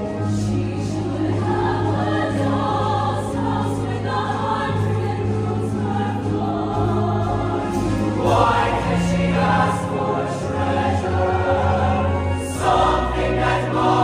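Mixed-voice show choir singing in harmony over sustained low accompaniment notes, growing louder about eight seconds in.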